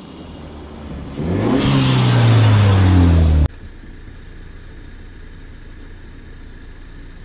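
2022 Ford Bronco's turbocharged engine revving as the truck climbs toward the camera. It rises in pitch and grows loud about a second in, then cuts off suddenly about halfway through. After that a much quieter, steady engine sound continues.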